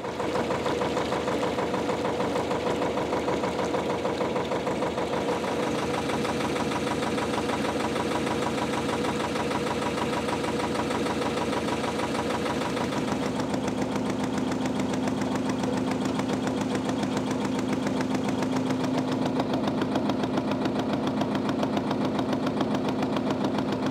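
A narrowboat's air-cooled Lister diesel engine running steadily under way, with a fast, even beat.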